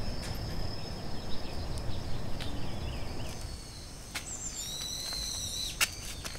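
Countryside ambience: birds calling, including a long, high whistled call about four seconds in, over a steady high insect tone. A low rumble fills the first half, and a sharp click comes near the end.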